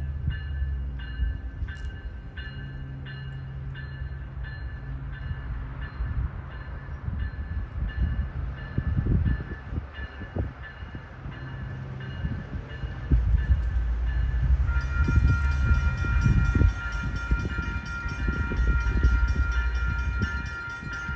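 Approaching commuter train: a bell dings steadily at first, fading over the first half. The train's low rumble then builds, and about two-thirds through the horn sounds one long chord that is still going at the end.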